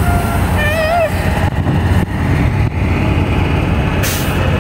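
Steady low rumble of semi-truck diesel engines on the lot, with a short air-brake hiss near the end.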